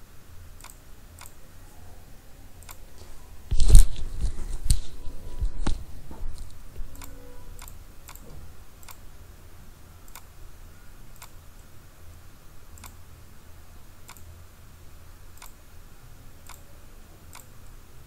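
Computer mouse clicking at a steady pace as objects are selected in CAD software. About three and a half seconds in comes a louder two-second spell of thumps and rustling.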